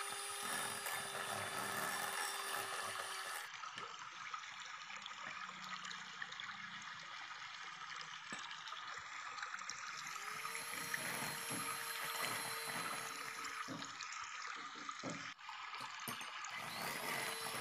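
Electric hand mixer whirring at low speed, its beaters churning a creamy mixture in a glass bowl. It stops about three seconds in, a spatula scrapes and knocks against the bowl, then the mixer spins up again about ten seconds in, cuts off suddenly, and starts once more near the end.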